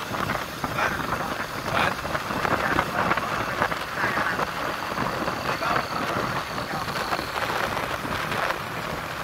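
Wind rushing over the microphone mixed with the engine and road noise of a motorcycle being ridden along a paved road. The noise is dense and uneven, with no clear engine note standing out.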